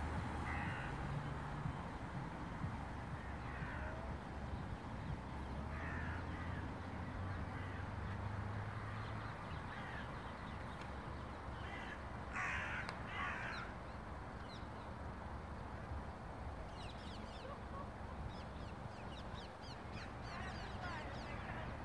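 Crows cawing a few times, the loudest pair of caws about halfway through, over a steady low rumble. Faint small-bird chirps come near the end.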